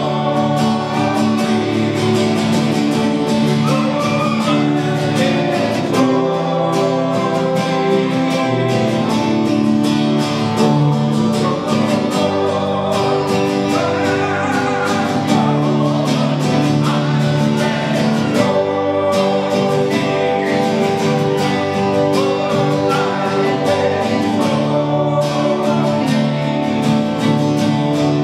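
Live worship music: a small band on acoustic guitar and bass guitar playing a slow praise song, with singing.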